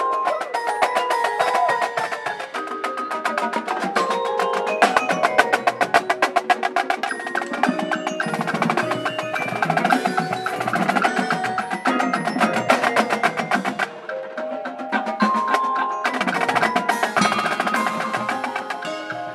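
Drumline playing together: rapid snare drum strokes close up, with mallet keyboards (marimba and vibraphone) playing held pitched notes underneath.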